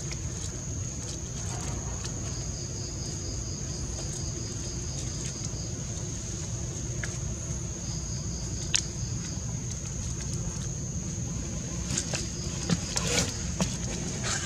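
A dry leaf crackling a few times as an infant macaque paws at it, over a steady high insect drone with a pulsing chirp and a low rumble.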